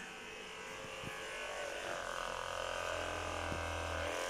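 Handheld percussion massage gun's motor running with a steady electric hum, getting louder about two seconds in. It is running weakly, which the filmer puts down to a flat battery after the charger was unplugged.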